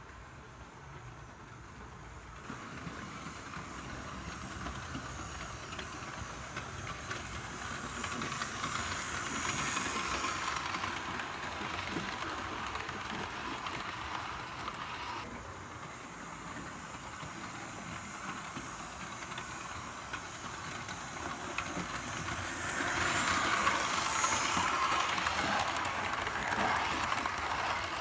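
Model railway train, the P2 and Tornado locomotives double-heading four coaches, running along the track with the whirr of the electric motors and wheels rolling on the rails. It grows louder twice, at about ten seconds and again in the last few seconds, as the train passes close by on its circuit.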